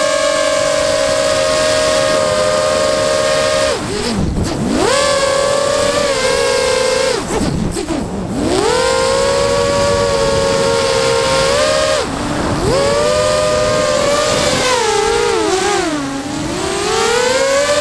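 FPV quadcopter's electric motors and propellers whining, heard from the onboard camera. The pitch holds steady, then drops sharply and climbs back about four times as the motors slow and speed up again.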